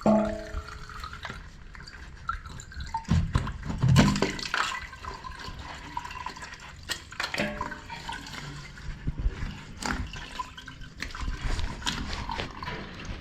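Water dripping and splashing in a rainwater drain being unblocked, with scattered clicks and a couple of heavier knocks about three and four seconds in.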